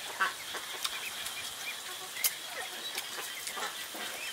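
Ducks calling softly in the yard, over scattered short clicks and smacks of someone gnawing meat off a small bone. A faint steady high insect buzz runs underneath.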